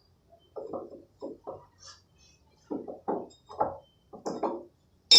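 A string of dull knocks on wooden form boards as they are worked loose from a concrete slab. Near the end comes one loud, sharp metal clank with a brief ring.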